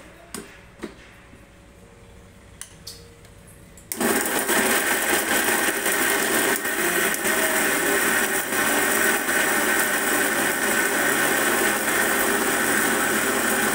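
A few light clicks as the small steel jar is seated on an Indian mixer grinder. About four seconds in the mixer grinder switches on and runs steadily, grinding boneless mutton with garlic, ginger and spices into kheema (minced meat).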